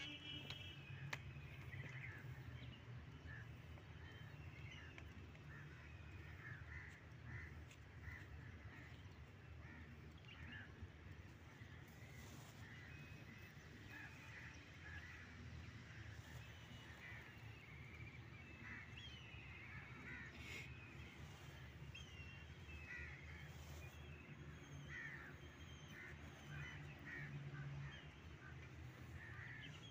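Faint outdoor bird chatter: many short, high calls keep coming all through, over a low steady rumble.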